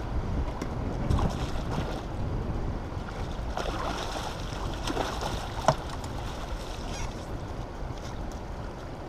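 Churning water from a dam's spillway outflow and wind on the microphone, a steady noisy rush. A few short, sharper sounds come through around the middle, one a sharp click.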